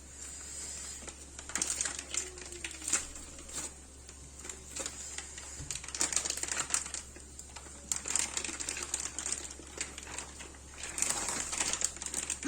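Plastic food packaging being cut and pulled open by hand: irregular clicks, taps and crinkling.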